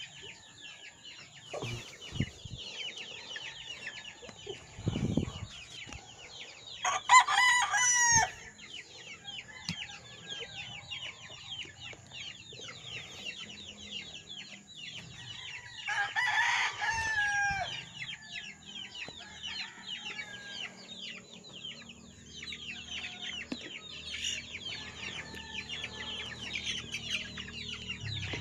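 A flock of month-old chicks peeping continuously in short, high, falling chirps. A rooster crows twice over them, about seven and sixteen seconds in, each crow lasting about a second and a half.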